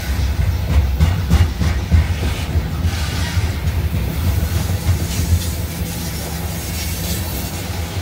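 CSX freight train of hopper cars rolling past at close range over a bridge: a steady low rumble with irregular clanks and knocks of the wheels over the rail joints, thickest in the first three seconds.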